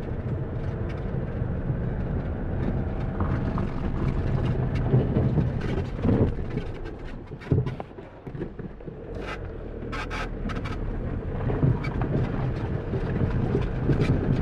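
A vehicle driving along a road: steady engine and tyre noise, with a few sharp knocks or rattles about nine to ten seconds in.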